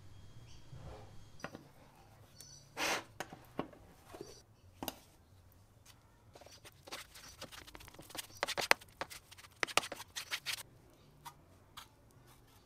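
Hand-work sounds on a metal tricycle seat: a short rasp of sanding, then a quick run of scrapes and clicks as body filler is scooped from its tin with a spreader.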